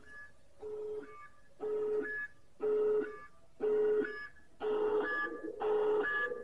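Opening of a wrestler's entrance music: an electronic pulse about once a second, each beat a short steady tone with higher beeps over it, growing louder.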